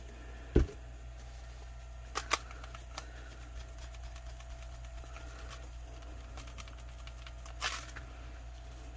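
Handling noises from a crafting table, with a steady low hum underneath. A sharp thump comes about half a second in, then two quick clicks a couple of seconds in, a few faint ticks, and a short rustle near the end.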